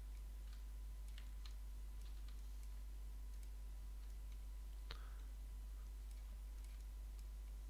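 Scattered faint computer mouse clicks, the loudest about five seconds in, over a steady low electrical hum.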